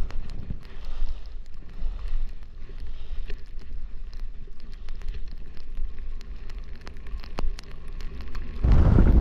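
Skis sliding and scraping over packed snow, with scattered short ticks, under a low wind rumble on the microphone. Near the end the wind buffeting on the microphone suddenly gets much louder.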